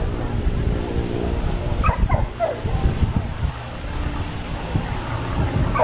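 Propeller plane's engine droning overhead during an aerobatic display, with wind noise on the microphone. A dog whines a few short, falling yelps about two seconds in and again near the end.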